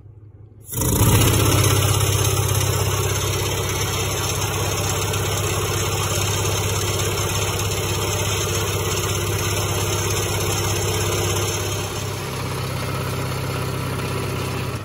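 Air-powered paint shaker running, shaking a can of Slip Plate graphite lubricant to mix it: a loud, steady hiss and rapid shaking that starts abruptly about a second in and eases slightly near the end.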